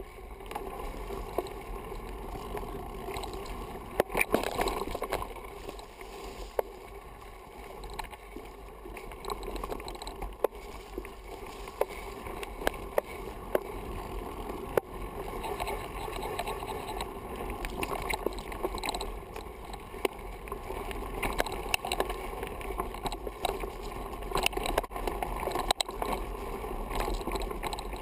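Mountain bike descending a rough dirt forest trail: a steady rushing rumble of tyres on the ground, with frequent sharp rattles and knocks from the bike over roots and stones.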